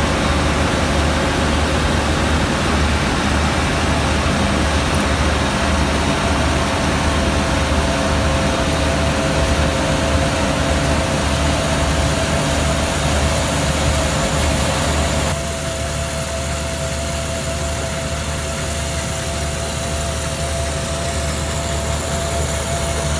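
ISEKI Japan 6123 combine harvester running in a rice paddy: a steady engine drone with a constant high hum over it. About fifteen seconds in, the sound turns a little quieter and thinner.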